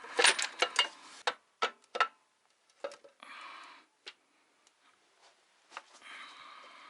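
Sharp clicks and knocks of metal and plastic engine parts being handled during a cylinder-head teardown, densest in the first two seconds, with a short rustling scrape twice further on.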